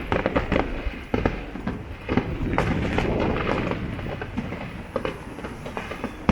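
Aerial fireworks going off: a dense run of crackling pops and sharp bangs, thickest from about two seconds in.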